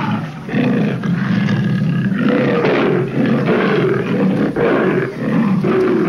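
A tiger roaring, several long roars with short breaks between them.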